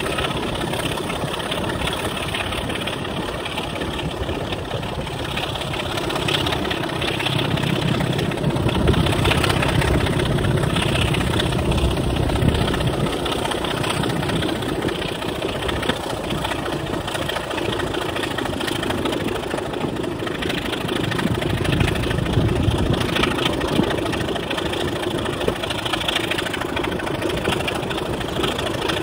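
Class 25 diesel locomotive's Sulzer six-cylinder engine running under power at the head of a moving train, heard from a carriage window together with the running train. The engine note swells louder about a third of the way in and again about three quarters through.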